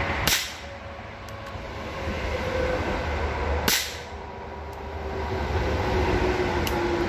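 Two shots from a Röhm RG20 .22 Short revolver: a sharp crack about a third of a second in and another about three and a half seconds later, with a few faint clicks between them. Underneath, a low rumble slowly grows louder.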